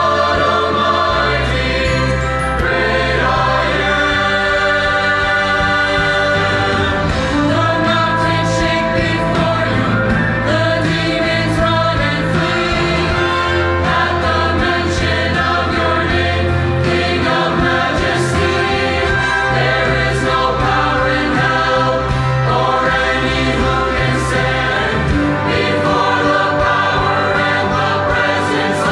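Mixed youth choir singing an English Christian worship song in sustained harmony, over held low bass notes that change every few seconds.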